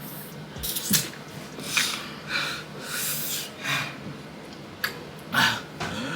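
A person breathing hard and sniffing in short, irregular breaths, from the burn of an extremely spicy gummy bear.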